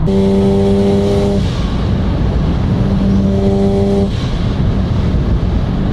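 Car engine held at high, steady revs in two pulls of about a second and a half each, over a loud low rumble of engine and road noise.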